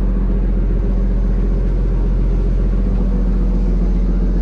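Fishing boat's engine running steadily with a constant low drone.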